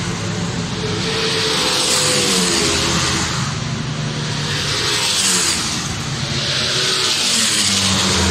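Several sport motorcycles on track passing one after another at speed, their engine notes rising and falling as each comes by and accelerates.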